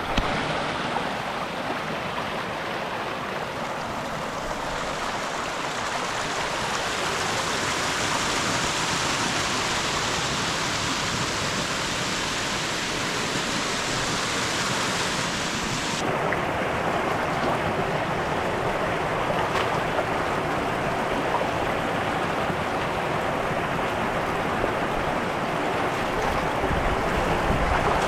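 Small waterfall pouring into a rock pool: a steady rush of splashing water. About halfway through the sound changes abruptly and loses its highest hiss.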